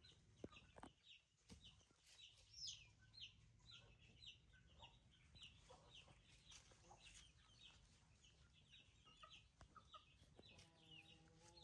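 Chickens peeping faintly, a run of short high calls several times a second, with a lower, longer call near the end.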